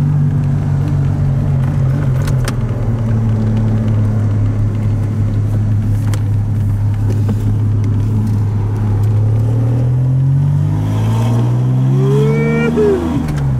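1981 DeLorean DMC-12's Stage-2 PRV V6 engine, heard from inside the cabin, running at steady revs while cruising. Over the last few seconds it climbs in pitch under acceleration, then the revs drop off sharply near the end.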